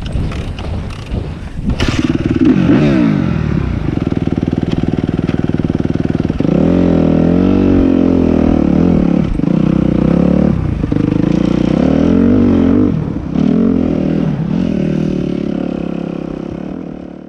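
Suzuki RM-Z250 four-stroke single-cylinder motocross engine, heard over a few knocks in the first two seconds. The engine then revs up as the bike rides off over dirt, climbing and falling in pitch with several short drops in revs. It fades out at the end.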